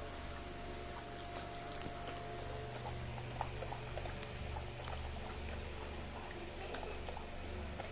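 Husky eating moist kibble mixed with vegetables from a steel bowl: irregular crunching, clicking and wet smacking as it chews, over a steady low hum.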